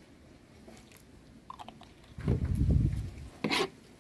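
A knife blade cutting and scraping through a pile of diced onion, tomato and sweet pepper on a flat surface, with one crisp stroke near the end. About two seconds in, a short low rumble is the loudest sound.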